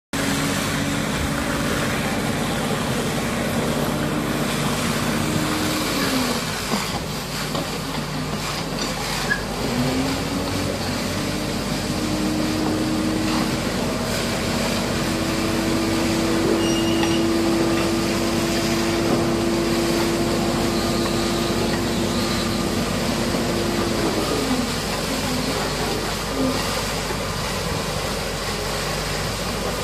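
Heavy-equipment diesel engine running steadily, its pitch dropping and rising a few times as the revs change, over a constant hiss.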